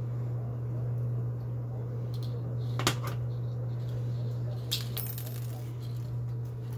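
Steady low hum under light clicks and a small metallic clink about three and five seconds in, from small metal fishing tackle (hooks, pliers) handled on a glass stove top.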